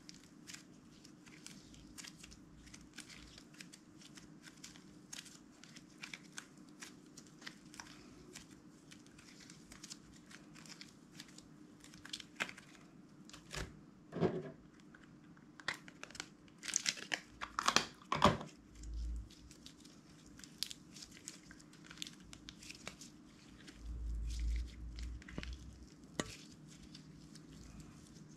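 Slime being squeezed and stretched by hand: a steady run of small sticky pops and crackles, with a denser, louder flurry of them a little past the middle and a few low thumps later on.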